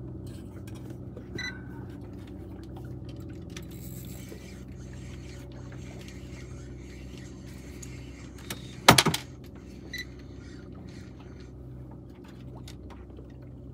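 Boat's outboard motor idling with a steady low hum, with a loud, sharp clatter of a few quick knocks about nine seconds in and two short high blips.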